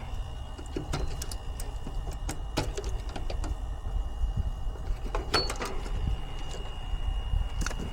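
Scattered clicks, taps and knocks of hand tools and metal parts being handled on an air conditioner's outdoor unit, over a steady low rumble and a faint steady high tone.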